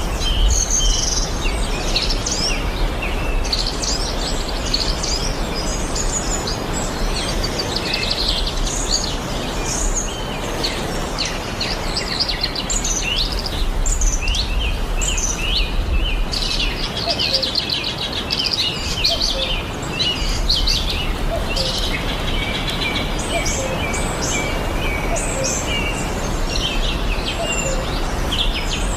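Several birds chirping and singing in quick, overlapping calls throughout, over a steady background hiss.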